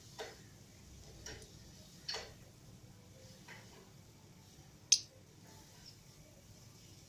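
Lovebirds giving a few short, sharp chirps, about five spaced irregularly, the loudest about five seconds in.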